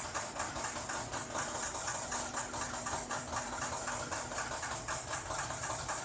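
Fully automatic vacuum-transfer four-colour flexo printing and die-cutting machine for corrugated cartons running steadily: an even, rapid mechanical clatter over a constant hiss.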